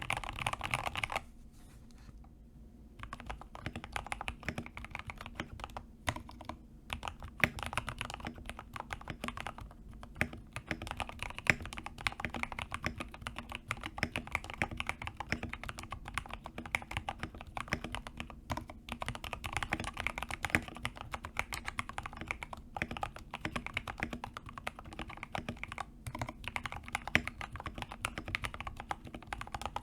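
Continuous typing on a CIY Tester 68 (TES68) custom mechanical keyboard with Gateron KS-3 Yellow linear switches: a fast, irregular run of keystrokes after a short pause near the start. The board is modded with three layers of masking tape and a PE-foam layer for a deeper, "thocky" sound.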